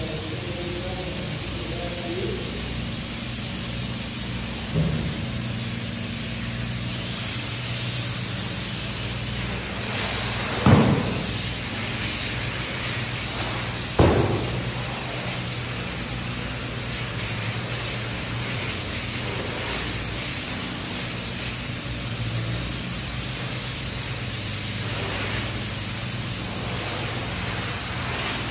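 Closed-cell spray foam gun spraying foam onto a barn's metal roof: a steady, even hiss over a low hum. Two short loud thumps come about eleven and fourteen seconds in.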